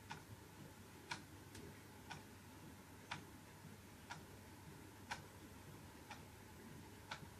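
Clock ticking about once a second, sharp faint ticks over quiet room tone.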